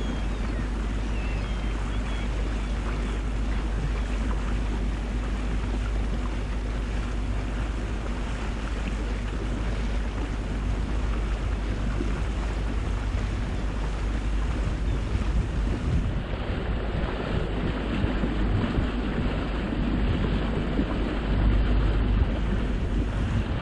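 Motorboat underway: a steady engine drone under rushing water, with wind buffeting the microphone, gustier in the second half.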